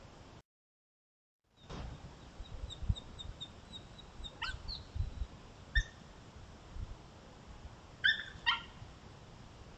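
Coyotes yelping in a territorial confrontation between coyotes from rival packs: a few short, high yelps, two of them close together near the end, over faint hiss and low thumps.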